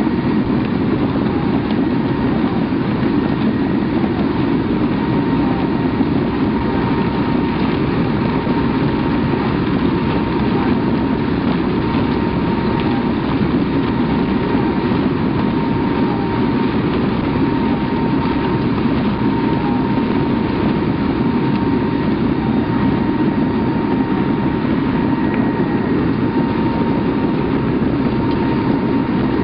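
Aircraft engines and slipstream wind at an open paratroop jump door in flight: a steady, loud rushing noise with a faint steady high tone.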